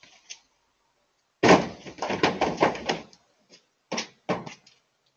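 A deer crashing into a 2007 Chevy Silverado pickup: a sudden loud thud about a second and a half in, then a rapid run of knocks and clatter, and two more sharp knocks near the end.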